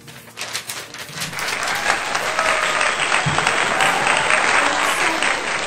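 Crowd applause, many hands clapping, swelling over the first two seconds and then holding loud and steady. The applause is a recorded track laid over the picture.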